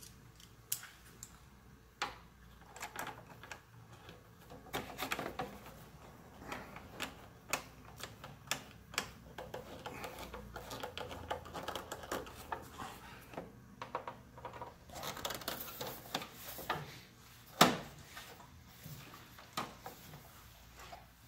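Irregular clicks and taps of a hand-held T25 driver and screws working against a motorcycle's plastic body panels as the screws securing the radiator discharge duct to the knee cover are driven in, with one louder knock about 17 seconds in.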